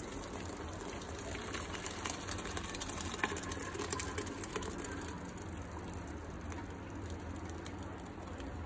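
Starchy cooking water from boiled rice pouring out of a steel pot through a perforated steel rice colander into a steel pot beneath: a steady gush of draining water.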